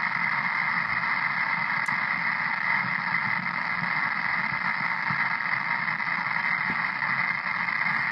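Icom IC-7100 transceiver in data mode giving out steady static hiss from its receiver, even and unbroken as the memory channel steps from the 40 m to the 80 m PSK frequency. This is the static that the owner hears on all bands in data mode and is trying to track down.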